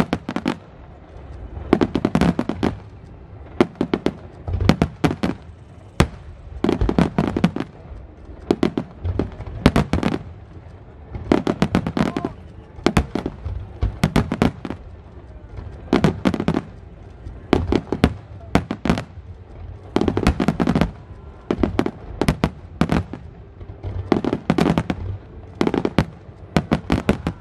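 Aerial fireworks display: shells bursting in quick clusters of bangs and crackles, a new volley about every second or so.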